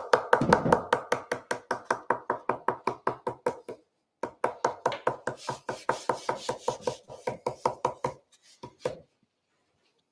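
A round stencil brush pounced rapidly onto a stencil laid on a painted wooden stool top: quick, even dabbing taps, about five a second. The tapping pauses briefly about four seconds in and stops near the end after a few last taps.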